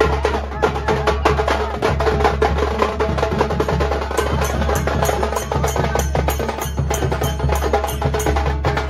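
Festival procession music: fast, dense drumming with sharp, clacking strokes many times a second over a held tone.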